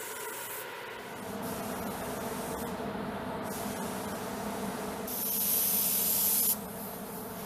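Compressed-air paint spray gun hissing as it sprays coating onto an aircraft panel, over a steady background hum. A louder burst of spray starts about five seconds in and cuts off suddenly about a second and a half later.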